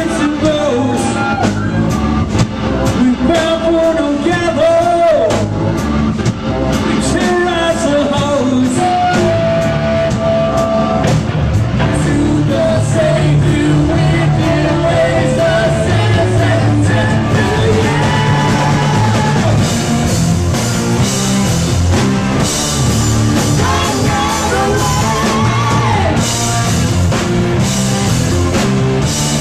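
Live rock band playing: a singer's voice over drum kit and guitar, with cymbals crashing more heavily in the last third.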